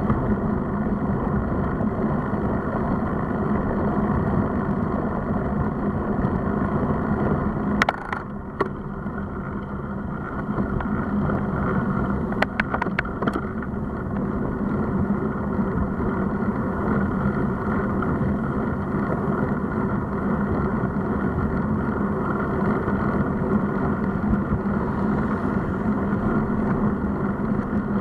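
Steady wind rumble and tyre noise picked up by a bike-mounted camera on a moving road bike. There is a sharp click about eight seconds in and a quick run of clicks a few seconds later.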